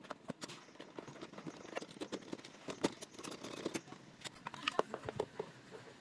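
Irregular light clicks and taps of smart lock hardware being handled and fitted together by hand, with a few sharper knocks about three seconds in and near the end.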